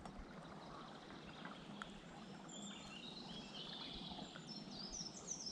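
Steady rush of a high, fast-flowing river, with a small songbird singing faintly in the second half: short runs of high chirps that step downward.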